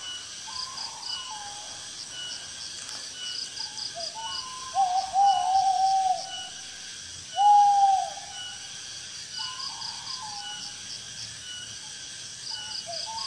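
Owl hooting in repeated phrases: a few short notes, then a long wavering hoot about five seconds in and a short single hoot a couple of seconds later, with the phrase starting again near the end. Insects chirr steadily at a high pitch behind it.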